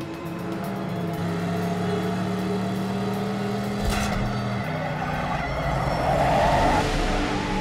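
Car engine running hard, then a sharp hit about four seconds in as the brake is stomped, followed by a loud rush of tyres skidding as the car slides to a stop.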